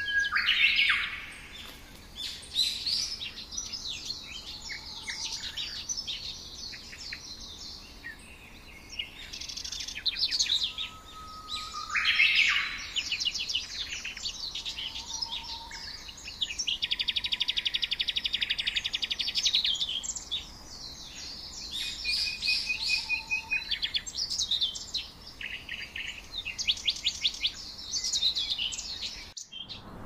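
Several songbirds chirping and singing, short high calls and phrases overlapping. Around two-thirds of the way through one bird gives a long, even, rapid trill lasting about three seconds.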